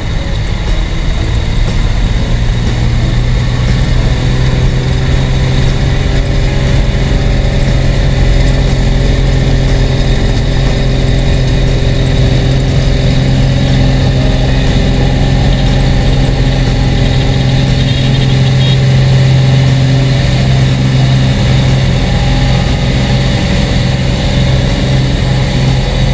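Cessna 206's six-cylinder piston engine and propeller at full takeoff power, heard from inside the cockpit: a loud, steady drone that comes up to power about a second in and then holds.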